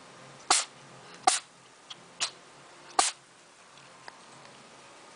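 A cat sneezing four times in quick succession, short sharp sneezes under a second apart, the third one fainter.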